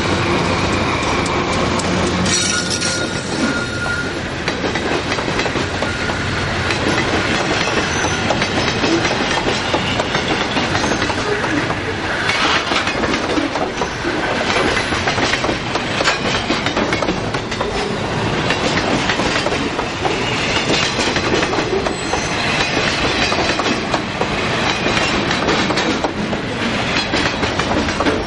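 Loaded stone cars of a freight train rolling past close by: a loud, steady rumble with the wheels clicking and clacking over the rails. A diesel locomotive's engine is heard in the first couple of seconds as it passes.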